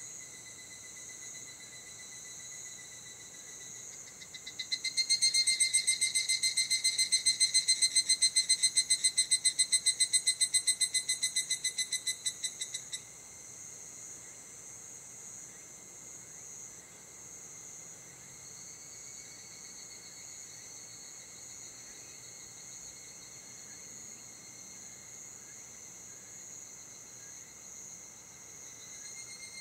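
Insects calling: a steady high-pitched chorus, joined from about five seconds in by a much louder, rapidly pulsing trill that stops suddenly around thirteen seconds in.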